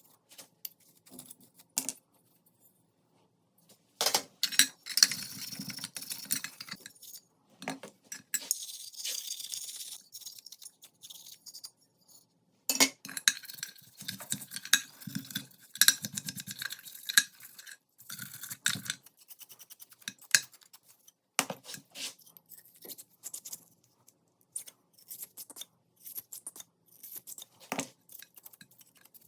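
Small metal pistol parts clinking and knocking as they are handled, with stretches of quick scraping strokes.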